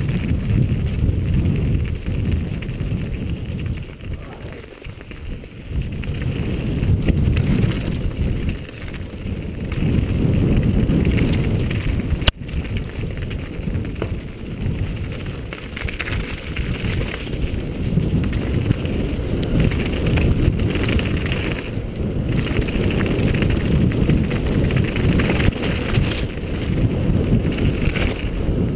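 Wind buffeting the microphone of a rider-mounted camera on a fast mountain-bike descent, with the tyres crunching and crackling over a stony dirt trail. A single sharp click about twelve seconds in.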